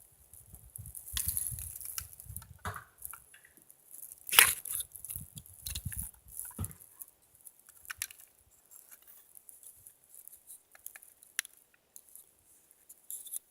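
Irregular crunching and rustling of someone moving through dry grass and brush, with low thumps during the first half and one sharp, loud snap about four and a half seconds in.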